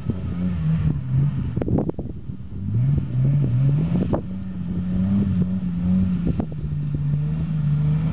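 Jeep YJ's engine working through deep mud on 40-inch tyres, its revs sinking and then climbing about three seconds in and holding up. A few sharp knocks cut through it.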